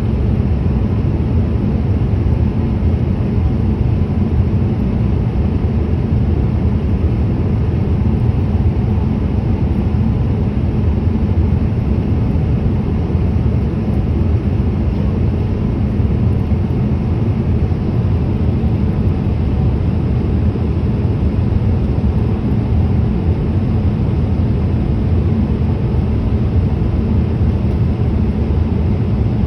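Boeing 787-8 airliner on its approach, a loud, steady low rumble of engines and airflow with a faint constant tone on top and no change in level.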